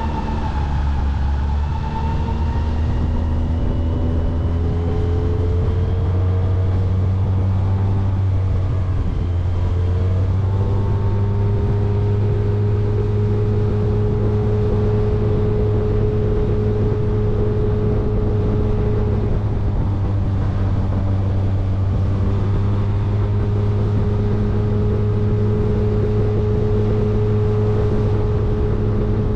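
Outboard motor pushing a small aluminium jon boat at speed. Its pitch climbs over the first ten seconds as the boat speeds up, then holds steady.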